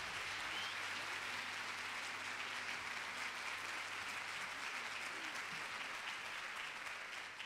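A large theatre audience applauding steadily at the close of an orchestral performance, the clapping fading away near the end.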